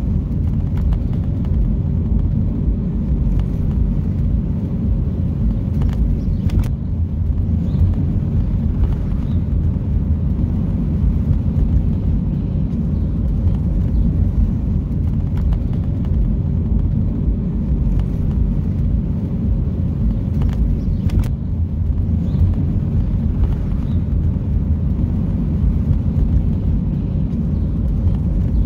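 Car driving in city traffic: a steady low rumble of engine and road noise, with a faint click about 7 seconds in and another about 21 seconds in.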